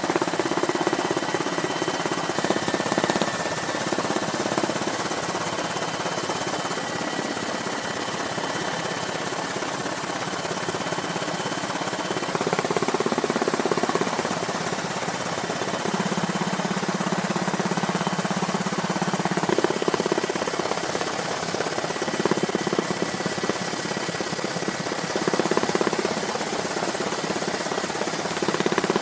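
Steady helicopter noise: engine and rotor drone with a thin high whine over it.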